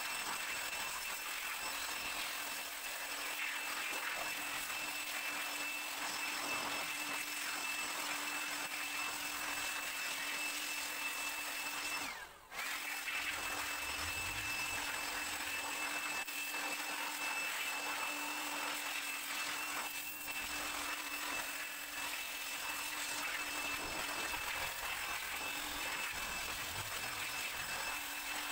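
Handheld electric air blower running steadily with a high motor whine, blowing water off the sensors and connectors of a freshly washed car engine bay. Its pitch sags and the sound drops out briefly about twelve seconds in, then it runs again.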